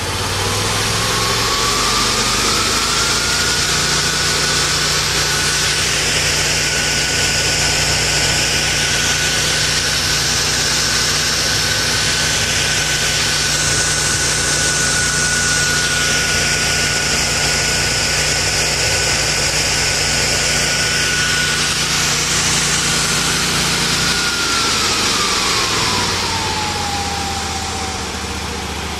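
Buffalo Turbine Cyclone gasoline debris blower throttled up by remote: a whine rises over the first few seconds and holds steady at full throttle. Near the end it winds back down to a lower, quieter run.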